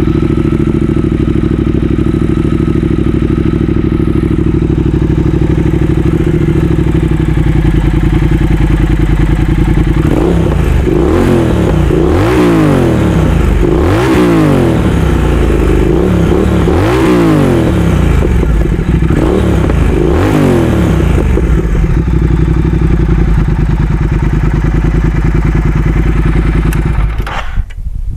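Motorcycle engine with an aftermarket exhaust muffler idling steadily, then revved repeatedly in a series of quick throttle blips through the middle, settling back to idle. The sound stops abruptly near the end.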